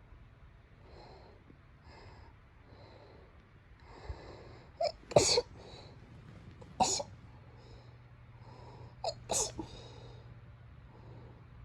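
A person sneezing three times, about two seconds apart, after a few seconds of quiet breathy inhaling. Two of the sneezes have a short catching intake just before the main burst.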